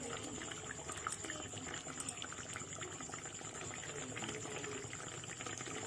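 Thin, watery fish curry (macher jhol) boiling in a pan, a steady bubbling with many small irregular pops.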